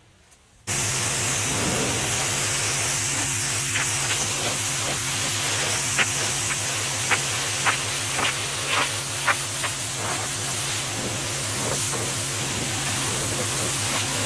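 Pressure washer spraying a high-pressure water jet onto a truck's hood and fender: a steady loud hiss over a low pump hum, starting abruptly about a second in. A scatter of sharp ticks comes through the middle of the spray.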